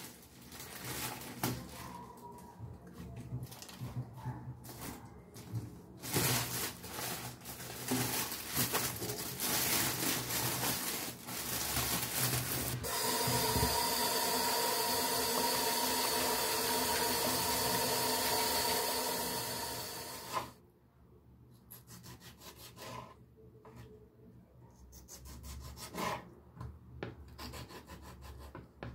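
Lettuce being rinsed and handled at a stainless steel kitchen sink, with a steady rush of tap water through the middle that stops about two-thirds of the way through. Then a kitchen knife slices tomatoes on a wooden cutting board, with light cuts and taps on the board.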